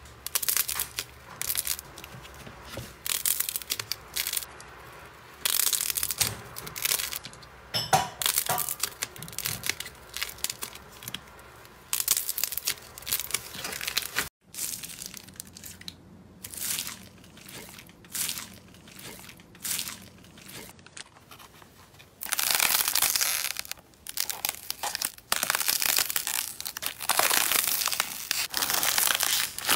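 Slime being squeezed, poked and stretched by hand: sticky crackling and squelching in irregular bouts. It breaks off briefly about halfway through, then turns denser and louder about two-thirds of the way in as a large fluffy slime is pulled apart.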